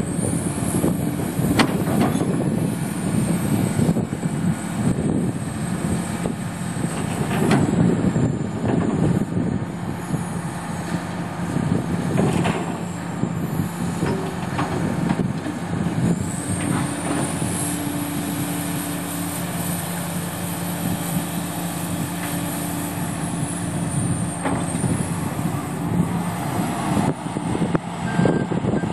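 Komatsu PC400LC-7L excavator's 11-litre six-cylinder turbo diesel engine (SAA6D125E-3) running, with a thin high whine that rises and falls several times and scattered knocks.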